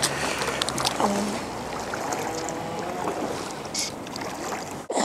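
Water splashing and sloshing around a landing net as a hooked rainbow trout is drawn in at the water's edge, with wind rumbling on the microphone for the first couple of seconds and a short splash near the end.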